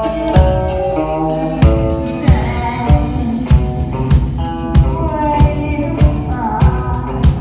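Live rock band playing a song: a drum kit keeping a steady beat of about one and a half hits a second under guitar chords and singing.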